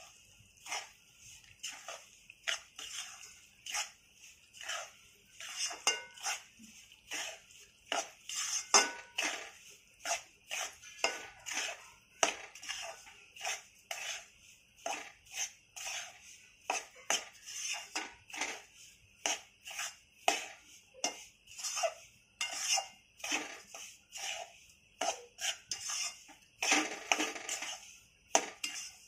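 A spatula scraping around a kadhai, stirring coarse-ground urad and moong dal flour as it roasts in ghee: a quick run of short scrapes, about two a second.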